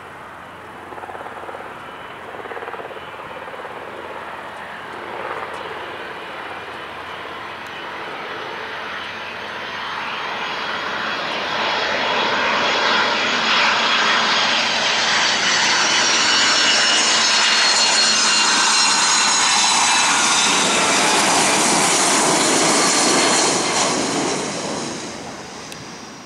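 Boeing 737-200's Pratt & Whitney JT8D low-bypass turbofans on final approach. The sound grows louder as the jet nears, then a high whine slides down in pitch as it passes, and it fades near the end.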